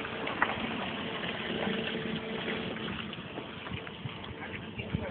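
A car's engine running steadily, with a faint constant hum and a few light clicks.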